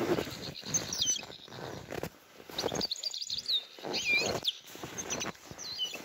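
Small finches chirping repeatedly with short, high, curving calls, the notes of a winter flock feeding in a sunflower field. Under them, footsteps crunch in deep snow about twice a second, and these are the loudest sounds.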